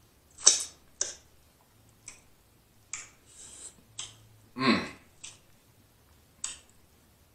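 Close-miked mouth sounds of someone eating shrimp from a seafood boil: sharp wet lip smacks and mouth clicks about once a second, the loudest near the start, with one longer wet smacking sound a little past the middle.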